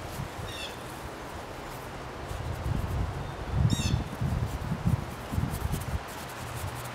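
A songbird calling twice, each a short quavering phrase about three seconds apart, over a faint steady hum and a few low muffled rumbles in the middle.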